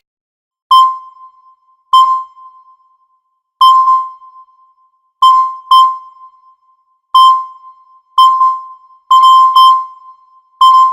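Siemens AX75 ringtone played back as MIDI through a soundfont: a single high keyboard note struck about a dozen times in an uneven, syncopated rhythm, each note ringing briefly and fading, with silence between.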